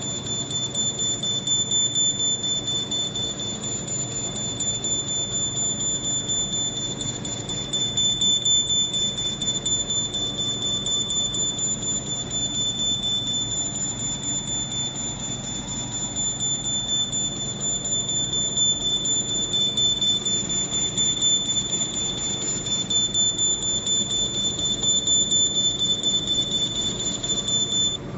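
A laser machine with a 100 W metal-tube CO2 laser punching holes in heavy paper: a steady high-pitched whine with fast ticking over a low hum. It stops just before the end.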